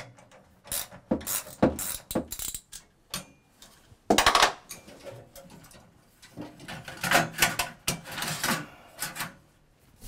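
Metal clinking and clanking as the perforated steel strapping around an electric water heater tank is unfastened with a hand tool and pulled free. There is a louder clank about four seconds in and a run of rattles near the end.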